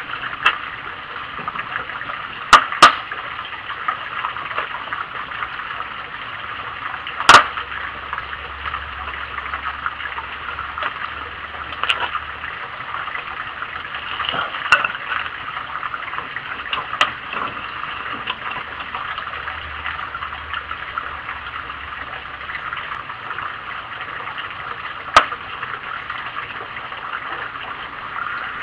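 Wood fire burning in a rocket stove with a steady rushing draft and crackling. A few sharp knocks stand out: two close together a few seconds in, a louder one about seven seconds in, and another near the end.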